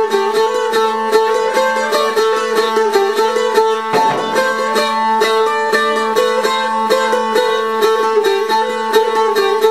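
Bulgarian tambura plucked with a pick in quick, even strokes, its open strings ringing as a steady drone under the melody.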